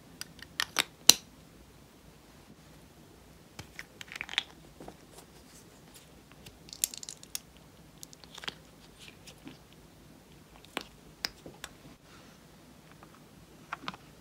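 Sharp plastic clicks as a pink lipstick tube is pulled apart, loudest about a second in, followed by scattered small crackles and squishes as glitter slime is pressed and worked by hand.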